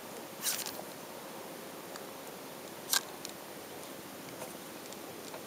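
A steady hiss of wind and water, with a short cluster of sharp handling clicks and rustles about half a second in and one louder sharp click about three seconds in.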